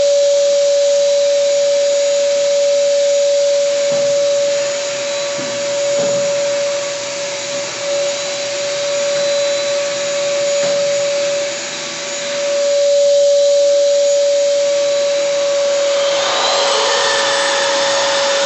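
Wet/dry shop vacuum extracting dust through a hose from an electric orbital wall sander, running steadily with a constant motor whine over a wide hiss. Near the end the sander is pressed to a painted wall, and a rougher, brighter sanding scratch joins in.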